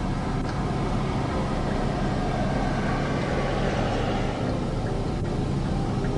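Motor vehicle running steadily: a low engine hum under road noise, which swells and fades again around the middle.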